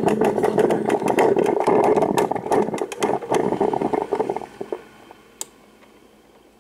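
Black & Decker drip coffee maker gurgling and sputtering as it brews, a rough run of crackling pops that dies down about four and a half seconds in. A single sharp click comes shortly after.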